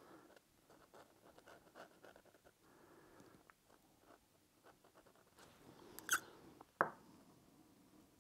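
Faint scratching of a pen on sketchbook paper as short ink lines are drawn, with two louder clicks about six and seven seconds in.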